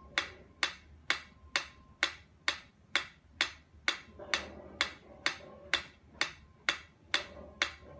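Mechanical pyramid metronome ticking at an even, fairly brisk beat of about two ticks a second.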